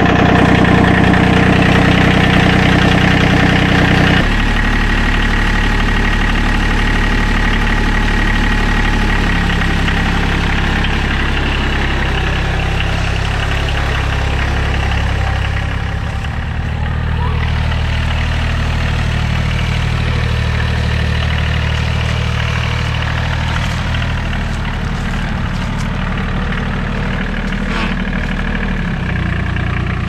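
Farm tractor engine idling while it warms up in freezing cold. About four seconds in, the engine note drops to a lower, steadier idle.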